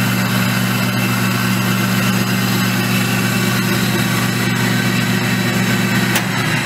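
North State table saw running free on its new single-phase 2 hp NEMA 56 frame motor, the motor driving the arbor through a two-groove pulley and V-belts: a loud, steady hum with a hiss over it, on its test run after the motor swap. A single click near the end.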